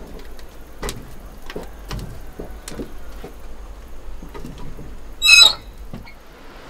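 Split firewood being loaded into a wood-fired steam boiler's firebox: a run of irregular wooden knocks and clunks, with one short, high squeal about five seconds in.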